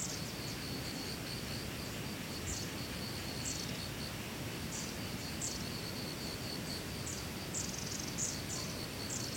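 Outdoor summer-to-autumn ambience of insects chirping: a steady, fast high-pitched trill runs throughout, with short high chirps that fall in pitch repeating every second or so, over a low steady background hiss.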